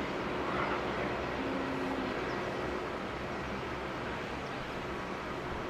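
Distant jet airliner engines running steadily, heard as an even rush of noise with a faint steady hum.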